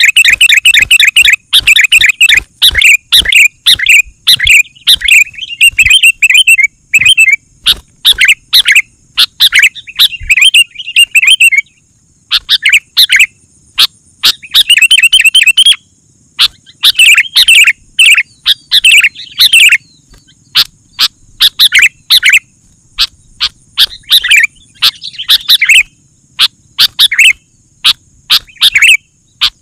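Sooty-headed bulbul (kutilang) calling loudly and persistently: rapid bursts of bubbly chirping notes, each run lasting a second or two, with short pauses between.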